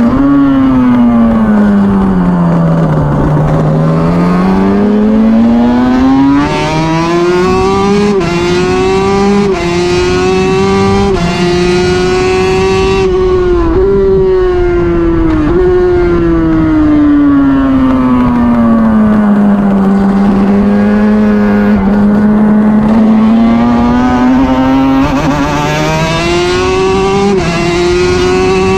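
Suter MMX 500's V4 two-stroke racing engine heard on board at speed. The revs fall for the first few seconds, then climb through a run of upshifts, each shift a short dip in pitch. They fall again around the middle, hold steady for a few seconds, and climb once more near the end.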